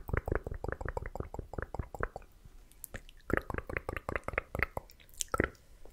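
Close-miked wet mouth sounds: a fast run of tongue and lip clicks of the 'tk tk' kind for about two seconds, a short pause, then another run of clicks and pops.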